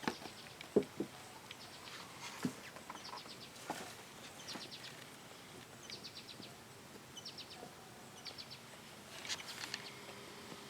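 Faint knocks and clicks of the plastic windshield-repair applicator being handled and unscrewed from the glass, a few sharp ones in the first few seconds, among quick bursts of high ticking chirps.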